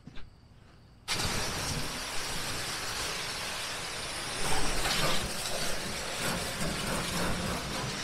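Pressure washer spraying down an oil-covered tractor engine: a steady loud hiss of spray that starts abruptly about a second in, swelling briefly about halfway through, over a low running rumble.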